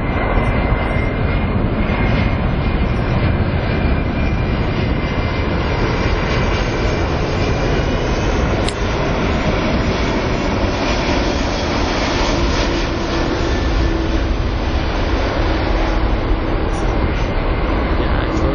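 Delta Air Lines Airbus A330 jet airliner on landing approach passing low overhead, its engines making a loud, steady jet roar. A high whine slides down in pitch over the first few seconds as the aircraft goes by.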